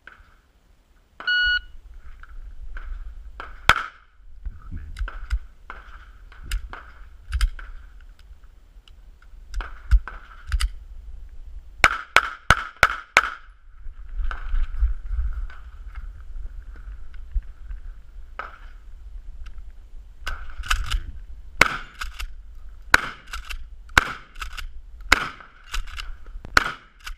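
An electronic shot-timer beep about a second in starts a course of fire: gunshots, single and in quick strings, including a fast run of five around the middle. Near the end a shotgun fires shots about a second apart, with handling and movement noise between the shots.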